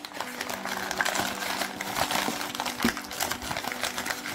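Newspaper crinkling and rustling continuously as a wrapped parcel is pulled open by hand.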